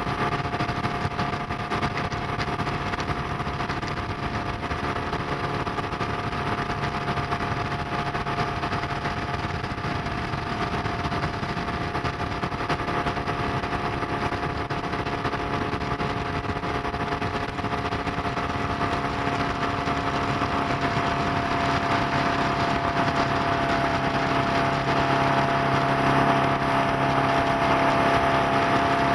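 Stingray 185 LS bowrider under way, its MerCruiser 3.0L four-cylinder engine running at a steady hum over a constant rushing noise. It grows louder over the last few seconds.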